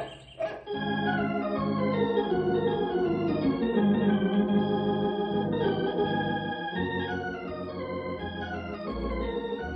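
Organ music bridge: held organ chords with a slowly falling line, starting just under a second in, the usual cue for a scene change in an old-time radio drama.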